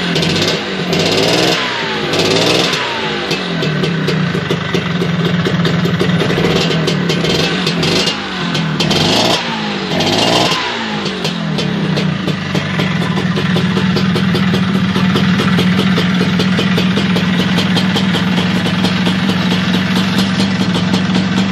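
Vespa P200 single-cylinder two-stroke engine with a Stage 4 J&G tune, on its first run. It is blipped up and back down several times over roughly the first ten seconds, then settles to a steady idle.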